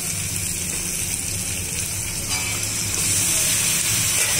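Potatoes and tomatoes frying in oil in a kadhai: a steady sizzle, with a low hum underneath. Boiled spinach goes into the pan, and the sizzle grows a little louder past the halfway mark.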